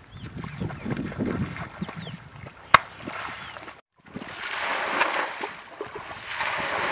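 Pond water sloshing and splashing as people wade and grope for fish in shallow water, with one sharp click about two and a half seconds in. The sound breaks off for a moment near the middle, then the water noise returns as a steadier rushing.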